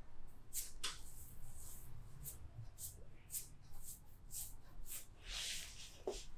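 Hands rubbing and sliding over skin and cloth during a massage, close to the microphone: a run of short, irregular swishes, with a longer rub about five seconds in.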